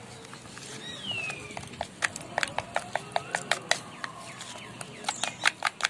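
Metal spoon clinking and scraping against a small plastic bowl while stirring ground spices into a wet paste: a run of quick, irregular clicks in two spells, about two seconds in and again near the end.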